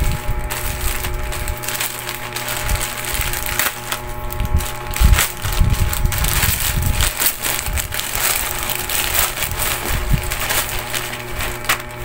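Black plastic courier mailer bag crinkling and rustling as hands pull it open, twist and bunch it up, in a dense run of crackles throughout.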